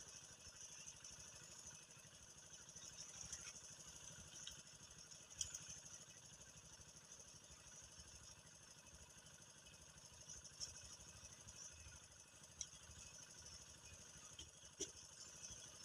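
Near silence: a faint steady background hiss and low rumble, with a few faint clicks.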